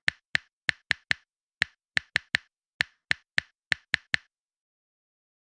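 Typing sound effect: about fifteen sharp key clicks at an uneven typing pace, stopping about four seconds in.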